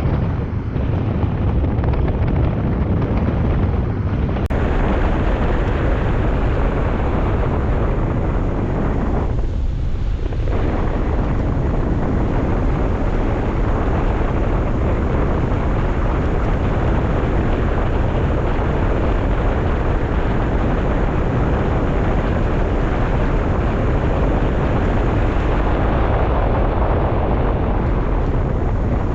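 Loud, steady wind rush and buffeting on the microphone, with a brief lull about nine seconds in.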